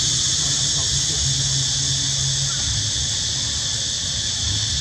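Steady, high-pitched chorus of insects buzzing without a break, with a low steady hum underneath.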